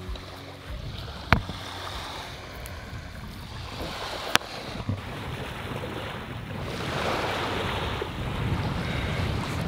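Small waves washing on a sandy beach, with wind buffeting the microphone; the wind and surf noise grows louder about seven seconds in. Two sharp clicks stand out, about a second and about four seconds in.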